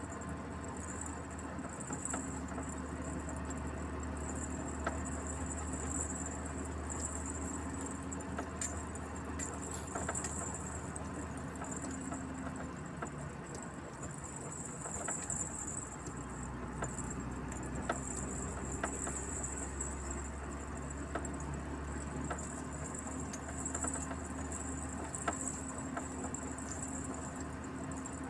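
Truck driving along a road, heard from inside the cab: a steady low engine and road rumble with scattered small rattling ticks and a high thin hiss that swells and fades.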